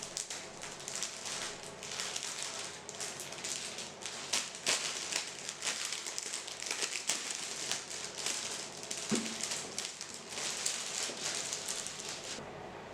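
Irregular crinkling and light clicking of things being handled by hand, over a steady hiss; the handling stops abruptly near the end.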